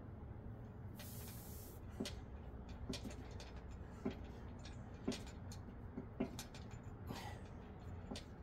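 Steel dip station knocking lightly about once a second as each dip rep loads it, with two sharp exhales from the man working the set, one about a second in and one near the end.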